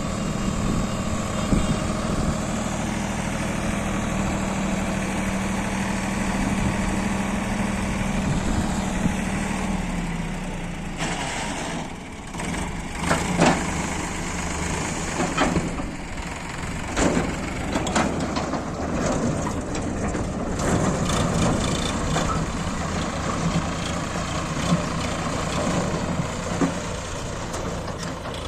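JCB 3DX backhoe loader's diesel engine running steadily, its note dropping about ten seconds in. After that come a series of sharp knocks and clatter over the engine.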